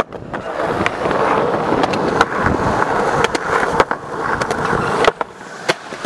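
Skateboard dropped onto concrete with a sharp clack, then polyurethane wheels rolling on concrete with a few clicks as the skater pushes toward a handrail. About five seconds in the rolling cuts off with the pop of an ollie over the rail, and a sharp clack follows shortly after.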